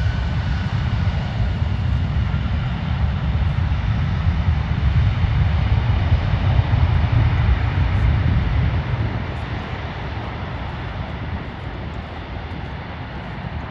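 Airliner engines rumbling as a plane passes, building to their loudest about two-thirds of the way through and then fading.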